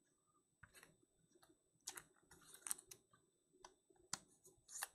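Faint, scattered clicks and light taps, a few at a time and a little louder near the middle and the end, over near silence.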